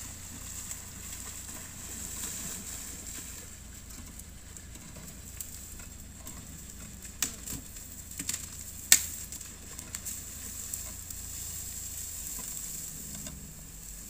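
Off-road SUV's engine idling faintly under a light, steady hiss of running stream water, with a few sharp clicks about seven and nine seconds in.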